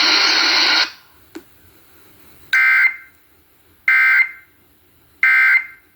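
Emergency Alert System End-of-Message data bursts broadcast over FM radio: three short, identical, warbling digital data bursts about a second and a half apart, signalling the end of the warning. Before them the broadcast audio cuts off about a second in.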